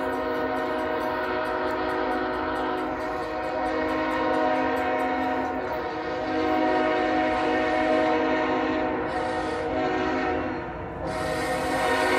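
Air horn of an approaching CSX GE ET44AH freight locomotive sounding for a grade crossing: a steady chord of several notes held in long blasts, with short dips about six and eleven seconds in. Near the end, the rolling noise of the train grows louder under the horn.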